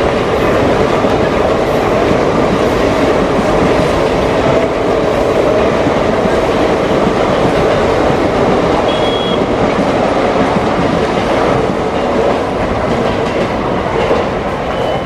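Two Mumbai suburban electric multiple-unit local trains running past on parallel curved tracks, their steel wheels loud and steady on the rails.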